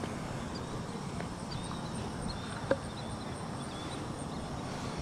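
Outdoor ambience: a steady low background noise with faint, evenly repeating insect chirps, and a single sharp click about halfway through.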